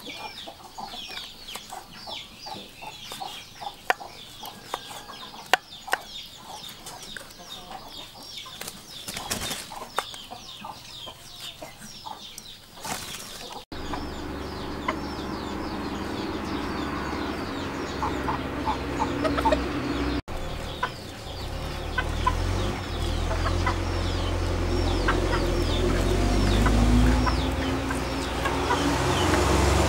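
Kitchen knife cutting meat on a wooden chopping board in sharp taps, with chickens clucking and birds chirping over and over. About halfway through, a steady low rumble joins and becomes the loudest sound.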